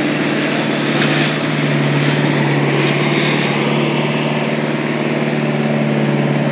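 Engine of the log-loading machinery running steadily at a constant speed, one unchanging engine note without revving.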